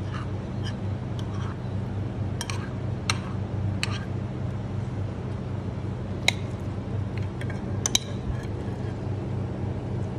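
A steel spoon clinking and scraping against a ceramic plate as salad is spread and arranged, a dozen or so sharp irregular clinks, over a steady low hum.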